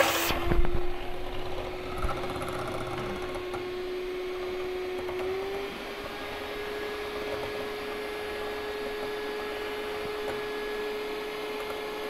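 Anex electric hand mixer running steadily with a whine, its beaters whisking eggs in a glass bowl. The whine steps up slightly in pitch about five seconds in. A short, louder burst of noise sounds at the very start.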